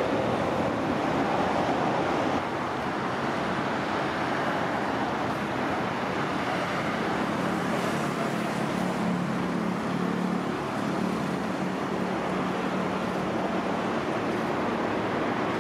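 City street traffic noise, with a highway coach's engine running close by as the bus pulls in; its steady low hum stands out from about seven to twelve seconds in.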